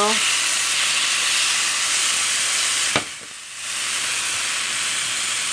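Sliced dryad's saddle mushrooms sizzling in olive oil in a frying pan, a steady hiss. About three seconds in there is a click and the sizzle drops away for under a second before it returns.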